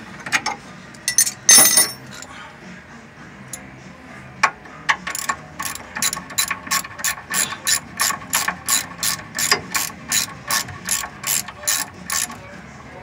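Socket ratchet wrench clicking as a bolt on a car's wheel hub is turned, settling into an even run of about three clicks a second from about four seconds in. A few sharper, louder knocks come in the first two seconds.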